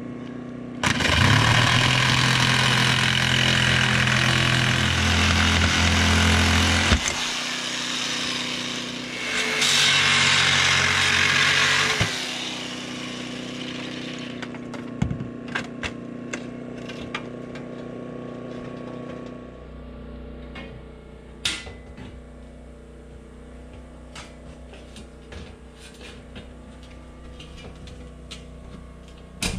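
Corded power saw cutting the chimney hole through ribbed steel roof sheeting: a loud spell of cutting of about six seconds, then a shorter one of about two and a half seconds. Lighter knocks and clicks follow later on.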